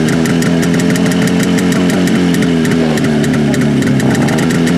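Cotton motorcycle engine idling steadily, with a fast, even firing beat.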